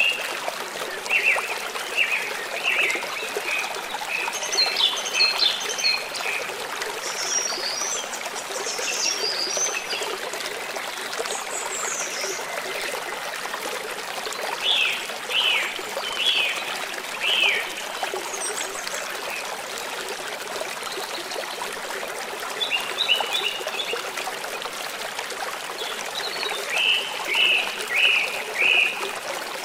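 Stream water running steadily, with songbirds singing short runs of repeated chirps over it several times.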